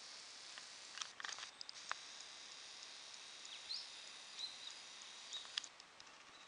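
Faint outdoor ambience with a steady high hiss. A few light clicks and rustles come in about a second in, and several short high chirps follow in the middle.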